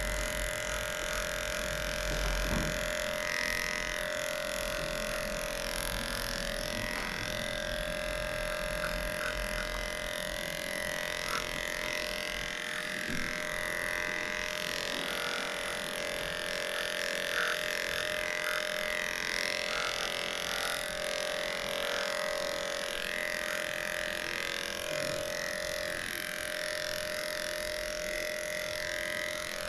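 Cordless electric dog clippers running steadily, a constant buzzing hum as they shave the dog's coat, with a few faint clicks.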